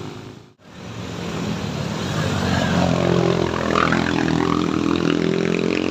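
Vehicle engine working hard on a steep uphill, its pitch rising and then holding. The sound cuts out briefly about half a second in, then returns.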